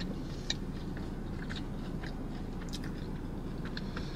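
A person chewing a mouthful of food: soft wet mouth sounds and scattered small crunches and clicks, over a steady low hum.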